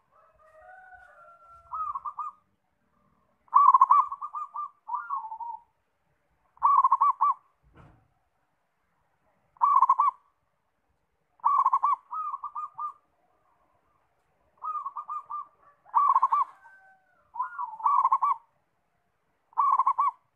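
Zebra dove (perkutut) cooing: a string of short, rapid, quavering coo phrases, about ten of them, one every one to three seconds. Fainter gliding calls sound in the first two seconds, and there is a brief low thump about eight seconds in.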